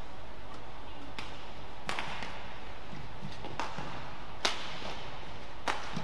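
Badminton rackets striking a shuttlecock in a rally: five sharp cracks about one to two seconds apart, the loudest about four and a half seconds in, over the steady hum of the hall.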